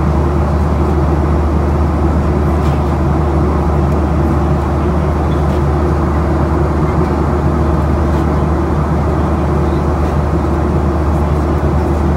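Steady cabin noise inside a Boeing 737-800 in flight: a deep, even drone from its CFM56-7B engines and the rush of air past the fuselage, with a few faint ticks.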